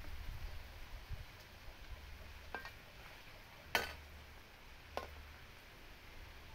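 Three sharp metallic clinks about a second apart, the middle one loudest, as a metal spatula and wok knock together over a wood cooking fire, with a low rumble underneath.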